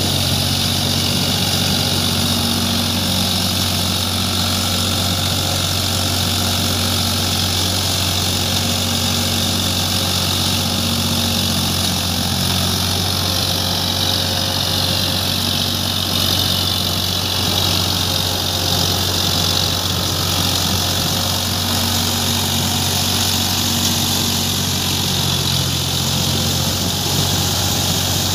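Eicher 557 4WD tractor's diesel engine running steadily as it pulls a working rotavator through deep, flooded paddy mud.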